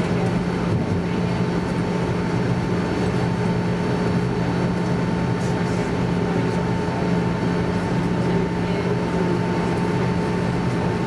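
Airbus A320 jet engines idling during taxi, heard inside the cabin as a steady hum and whine over a low rumble and airflow hiss.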